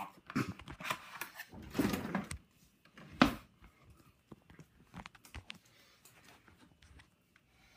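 Rummaging through a kitchen drawer: utensils clattering and knocking against each other, with one louder knock about three seconds in, then a few faint clicks.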